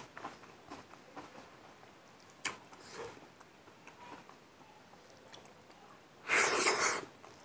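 Hand-eating sounds of rice and mustard greens: faint clicks and soft squishes as fingers mix the food on the plate. About six seconds in a handful goes into the mouth, with a loud, breathy mouth-and-nose noise lasting under a second.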